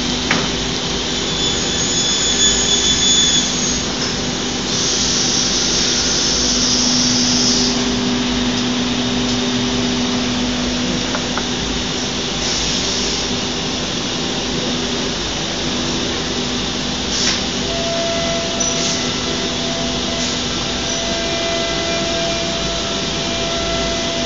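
Steady drone of a CNC router and its dust-extraction system running, with a constant hum. A burst of hiss starts about five seconds in and lasts a couple of seconds.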